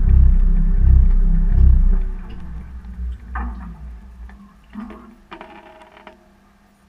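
Beko washing machine drum turning, heard from inside the drum, with a loud low rhythmic thumping about once every 0.8 s. The drum winds down and stops about two seconds in, leaving a few faint clicks and brief mechanical whirs.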